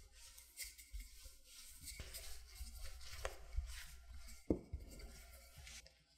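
Wooden rolling pin rolling out laminated pie dough on a floured silicone mat: soft rubbing strokes with irregular light knocks of the pin and hands, the loudest about halfway through.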